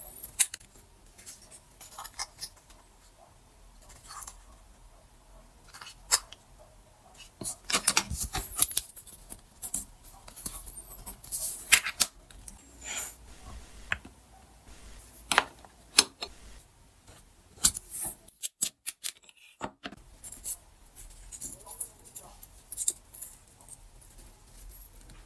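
Scattered light clicks, taps and scrapes from hands handling thin beech wood slices and a plastic digital caliper on a table. Near the end, masking tape is pulled off its roll.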